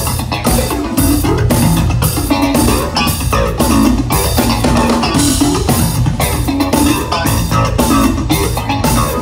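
Live jazz-funk band playing an instrumental passage, bass guitar up front with electric guitar and drum kit over a steady beat, loud as heard from the hall.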